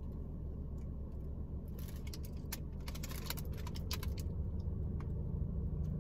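Steady low hum inside a car cabin, with light clicks and crinkles from a paper bag of pita and a plastic hummus tub being handled, bunched about two to three seconds in.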